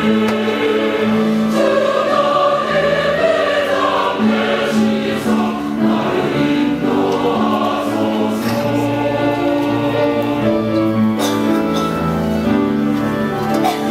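Church choir singing a sacred anthem in sustained, full-voiced chords.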